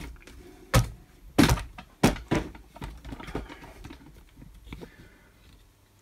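Handling noise from a camera being moved and set down: a few sharp knocks and thumps in the first couple of seconds, then fainter clicks and rustles as it is settled.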